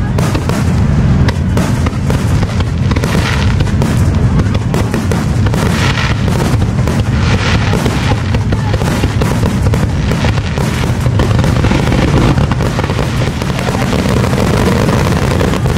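Aerial fireworks shells bursting one after another in a dense, unbroken barrage of booms.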